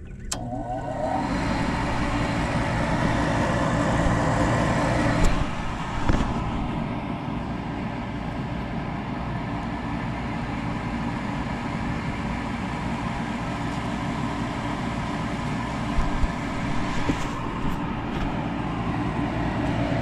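The draft inducer motor of a Carrier 48GS gas package unit starting up and then running steadily, pulling draft vacuum on the pressure switch hose. A few short clicks sound about five seconds in and again near the end.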